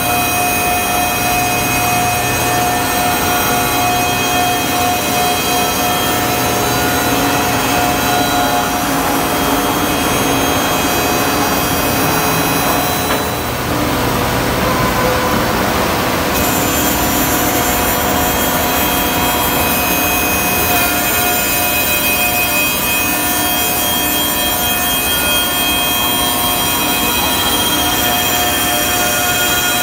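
Woodmaster four-spindle CNC copy shaper running: its high-speed cutter and sanding spindles whine in several steady tones over the noise of cutting and sanding wood.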